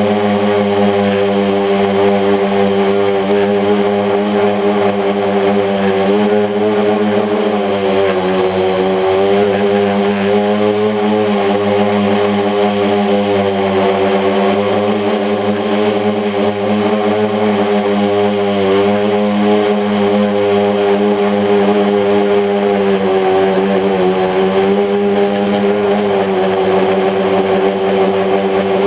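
Electric motors and propellers of a mini FPV tricopter in flight, a steady buzzing whine that keeps rising and falling in pitch as the throttle changes. The uploader blames a bent motor shaft for vibration on this craft.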